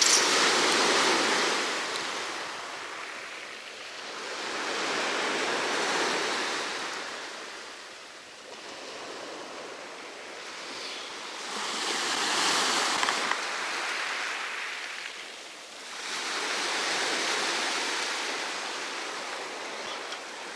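Black Sea surf breaking on the beach: waves wash in and draw back about every five to six seconds, four times in all.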